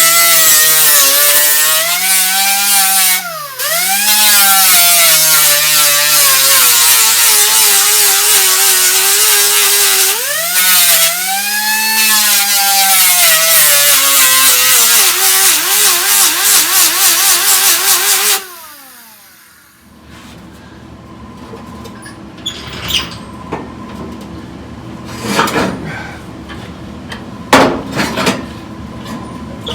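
Electric grinder running and grinding the car's steel frame clean for welding, its pitch dipping under load a couple of times. It is switched off about eighteen seconds in and winds down, followed by a few light knocks.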